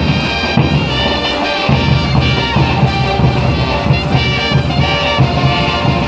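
Lively caporales dance music with a steady beat.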